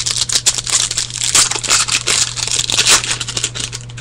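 A football trading-card pack's wrapper being torn open and crinkled by hand: a rapid, irregular run of crackles and rips.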